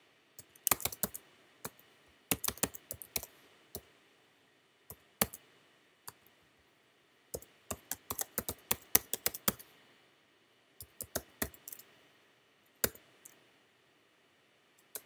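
Keystrokes on a computer keyboard, typing in short bursts with pauses between them. The longest, densest run of keys comes about halfway through.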